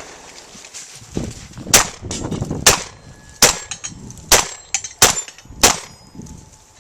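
Shotgun fired in a string of about six shots, roughly one a second and closer together near the end, with a couple of fainter pops between them: a competitor shooting a stage at a practical shotgun match.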